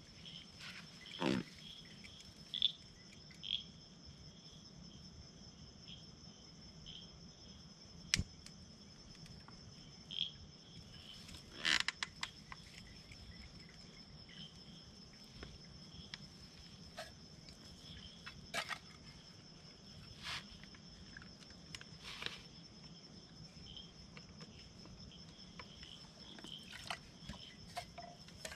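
Steady high-pitched insect chorus, a constant trill that runs on unbroken, with scattered sharp clicks and snaps every few seconds.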